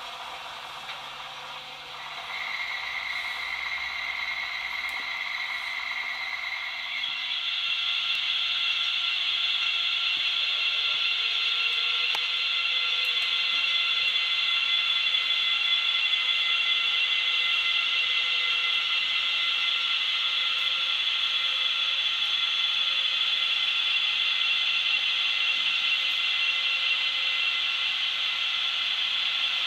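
Four Märklin model SBB Re 6/6 and Ae 6/6 electric locomotives with ESU sound running together under a heavy ore train. It is a steady high whine and hiss that grows louder about two seconds in and again about seven seconds in.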